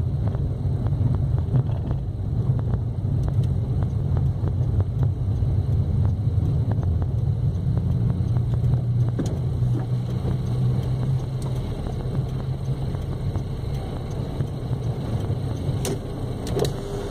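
A car driving, with a steady low rumble of engine and road noise throughout; a few light clicks near the end.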